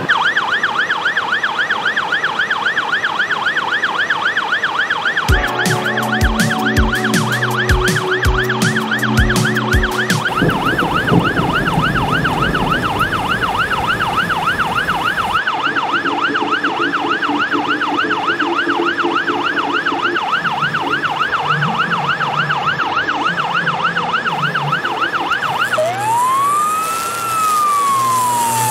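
Ambulance siren sounding in a fast yelp, its pitch swinging up and down about four times a second; near the end it switches to a slower wail that rises and then falls. About five seconds in, a run of low, evenly spaced thuds plays under it for several seconds.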